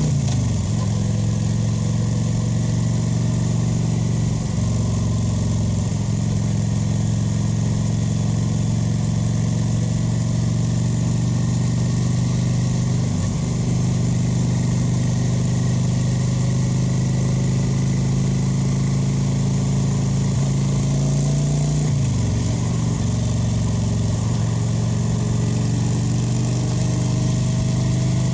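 Kawasaki VN 900's V-twin engine running steadily under way, heard through its exhaust. The engine note dips briefly a few times: at the start, and about 4, 13 and 22 seconds in.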